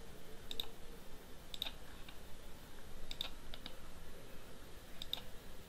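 Computer mouse buttons clicking: a handful of short, sharp clicks spaced roughly a second apart, several in quick press-and-release pairs.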